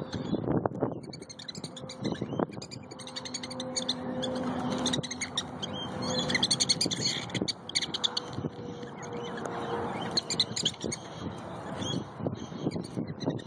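Prairie dogs squabbling over food: a run of quick, high-pitched chirps and squeaks, busiest a little past the middle.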